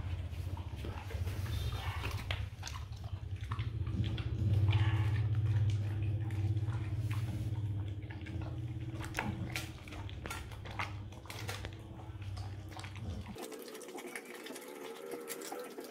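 Rottweiler eating moistened dry kibble from a stainless steel bowl: irregular crunching and wet lapping, with pellets clicking against the metal. A steady low hum runs underneath and stops abruptly about 13 seconds in.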